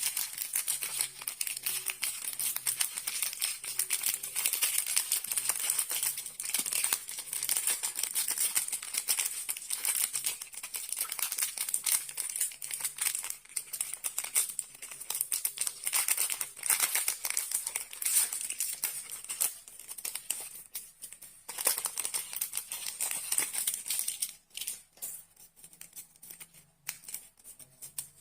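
Continuous crinkling and tearing of the foil wrappers on Kinder Surprise chocolate eggs as they are unwrapped by hand, thinning to scattered crinkles near the end.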